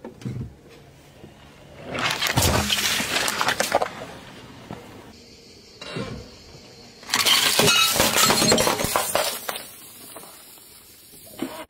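A car tyre rolls over a plate heaped with disposable plastic lighters. The plate shatters and the lighters crack in a loud burst of breaking and crackling about seven seconds in that lasts about two seconds. A similar burst of cracking comes about two seconds in.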